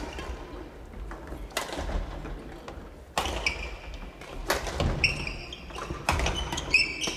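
Badminton rally: rackets striking the shuttlecock with sharp cracks every second or so, with sneakers squeaking on the wooden court floor.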